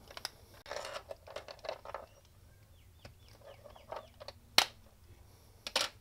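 Plastic remote key shell being prised apart with a small pry tool: scraping, creaking and short squeaks of the plastic, then a sharp crack about four and a half seconds in as the snap-fit halves let go, and a couple of clicks near the end.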